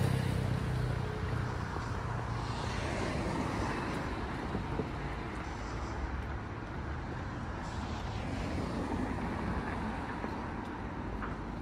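City street traffic: cars and a motorbike driving past on the road beside the pavement. A low engine hum at the start fades away, and vehicles swell past twice, once a few seconds in and again about two-thirds of the way through.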